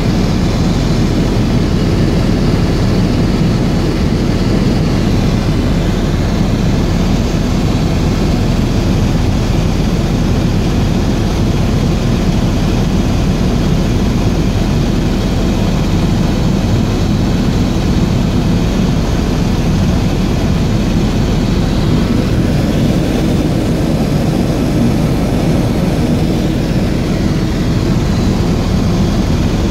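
Helicopter engine and rotor running steadily: a loud, even drone with no change in pitch or level.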